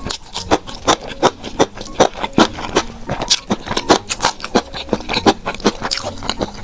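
Close-miked chewing and eating: a string of irregular wet, crisp mouth clicks and crunches, a few each second.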